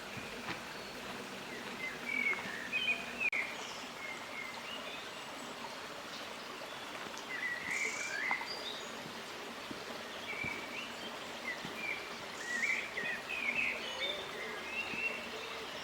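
Wild birds chirping in short, scattered phrases over a steady background hiss.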